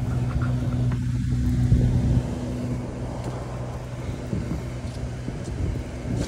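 Sportfishing boat's engine running with a steady low hum under wind and water noise, a little louder for the first two seconds.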